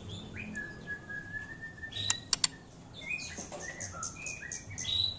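Young white-rumped shama singing: a held whistle, then a run of short, varied whistles and chirps, with a few sharp clicks about two seconds in.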